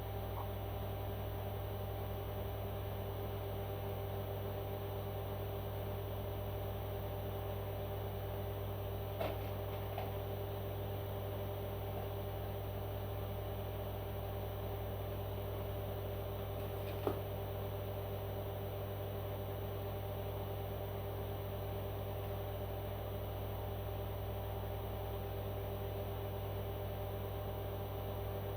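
Steady electrical or appliance hum holding several fixed tones at an even level, with a few faint clicks about a third and two thirds of the way through.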